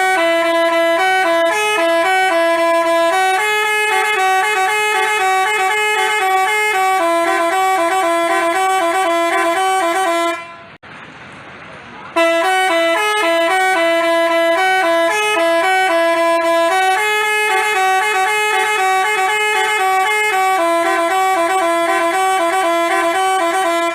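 Telolet basuri multi-tone bus horn playing a tooting melody, the same tune twice with a break of about a second and a half near the middle.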